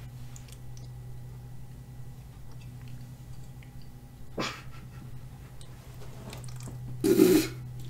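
A man tasting soured milk off a spoon from a metal pot: small faint mouth and spoon sounds over a steady low hum, a short sharp sound about four and a half seconds in, then a loud, rough half-second spit-like mouth noise near the end as he leans over the pot in disgust.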